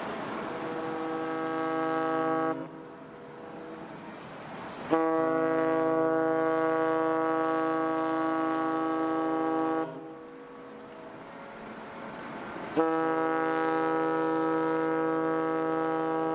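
The whistle of the cruise ship Pacific Venus sounds long departure blasts. One blast ends a little over two seconds in, a five-second blast starts about five seconds in, and another starts near the end.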